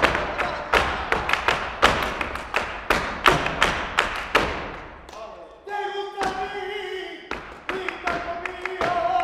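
Upbeat background music driven by sharp, regular percussive hits over a sustained melody; the beat drops out a little after five seconds in and the melody carries on more softly.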